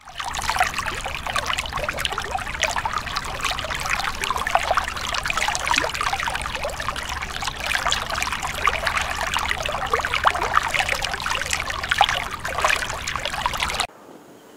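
Running water trickling steadily, which cuts off suddenly near the end.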